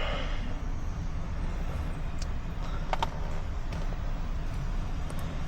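2014 Ram 1500's 5.7-litre Hemi V8 idling steadily. The engine has a cylinder 3 misfire and a heavy tick, which the mechanic expects to be a worn camshaft lobe.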